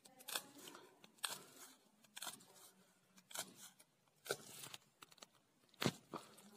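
Rug punch needle stabbing wool yarn through a woven plastic flour sack: a faint crunchy pop at each stroke, about one a second.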